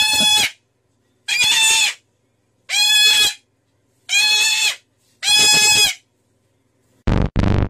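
White cockatoo screeching five times, each a loud, even, held note of under a second, a little over a second apart. Music starts near the end.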